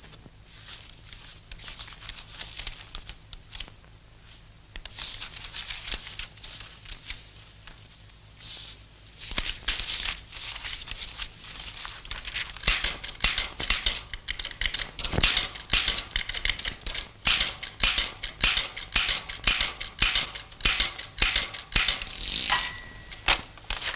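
Typewriter keys clattering in quick, irregular strikes, growing denser from about nine seconds in, with a short ringing tone near the end. A steady low hum runs underneath.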